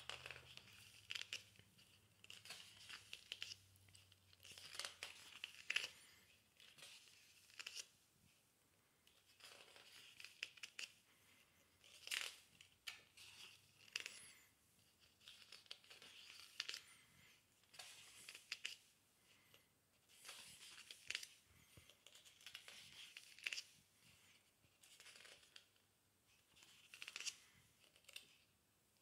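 Paper pages of a hardcover book being turned one after another, rustling faintly in short bursts about every second or two.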